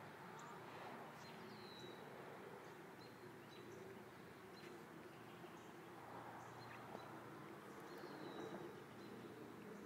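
Near silence with songbirds chirping faintly: short high calls, some sliding down in pitch, repeated every second or so.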